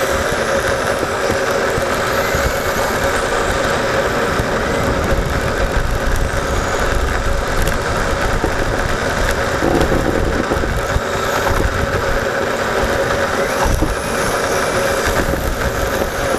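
Onboard sound of a Yokomo YD-2 electric RC drift car driving: a steady whine from the electric motor and drivetrain over rumble and tyre scrub from the asphalt.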